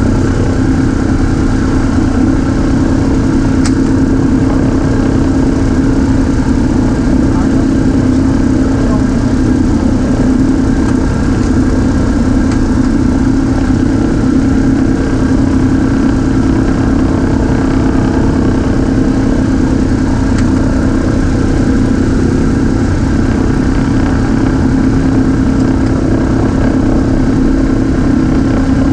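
The Douglas DC-3's twin Pratt & Whitney radial engines running steadily at low power, a loud, even drone as the aircraft taxis. It is heard from inside the cockpit with the sliding side windows slightly open.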